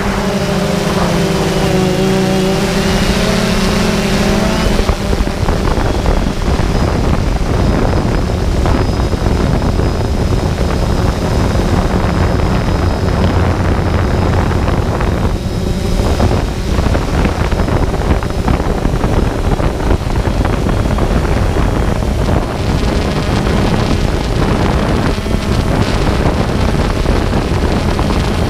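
Quadcopter drone's electric motors and propellers buzzing close to the camera mounted on it, with wind noise on the microphone. The motor pitch wavers up and down in the first few seconds, then holds fairly steady.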